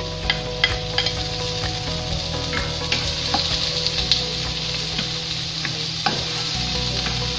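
Chopped tomatoes tipped into a non-stick wok of sautéing onions and garlic, sizzling in hot oil as they are stirred. Light taps and scrapes of the utensil against the pan come through the first half.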